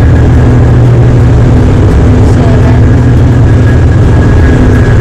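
Tour boat's engine running steadily under way: a loud, unbroken low drone.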